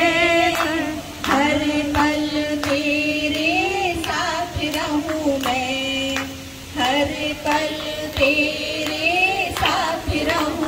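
A woman singing a Jain devotional bhajan into a microphone, drawing out long held notes, with short breaths about a second in and again past the middle.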